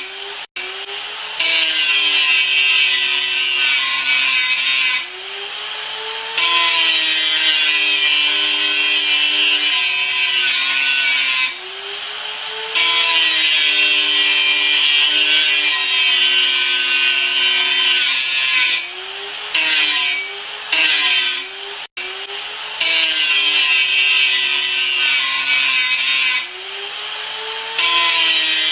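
Electric grinder running, its motor whining steadily under a loud, hissing grind while pressed to the work. Several times it is eased off for a second or so: the hiss drops away and the motor speeds up briefly before biting in again.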